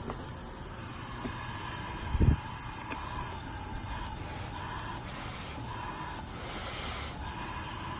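Compressed air from a leak-down tester hissing steadily out through the intake of a 2005 Volvo engine, with cylinder 3 held at top dead centre: air leaking past the intake valve. A short thump about two seconds in.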